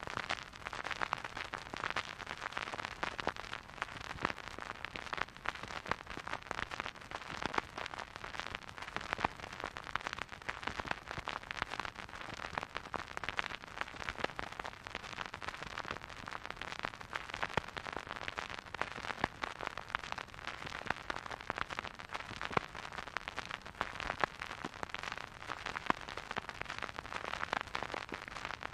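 Record player surface noise: a spinning vinyl record's steady hiss with dense, fine crackle and small pops, with no music.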